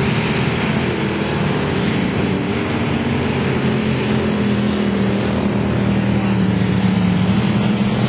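Several dirt-track stock car engines running hard in a heat race, a loud steady drone of engines.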